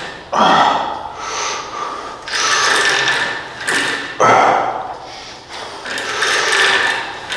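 Cable machine worked through tricep pushdown repetitions: the cable whirs over its pulleys as the weight stack rises and falls, about one stroke every two seconds, some strokes starting with a sharp clack.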